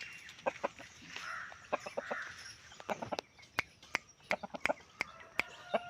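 Chickens on a farm making short calls and clucks, with many sharp, irregular clicks and taps that come thicker in the second half.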